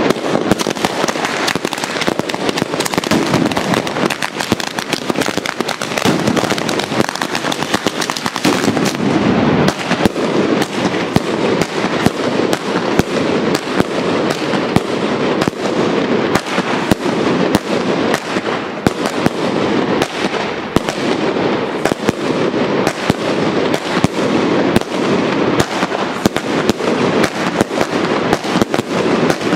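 A batteria, a long chain of firecrackers laid along the ground, going off in a rapid string of sharp bangs, many a second, without a break.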